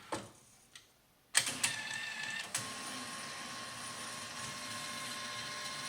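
METechs CL200T motorized curtain track motor switching on with a click about a second and a half in, then running with a steady whine as it drives the carrier along the track on a test run. Its tone shifts once soon after starting.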